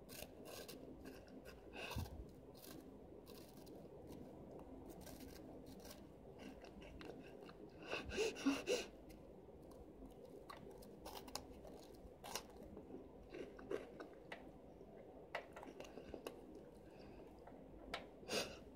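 A child chewing a mouthful of Chester's Flamin' Hot Fries, crunchy corn-and-potato snack sticks. Faint, scattered crunches, with a louder run of them about eight seconds in.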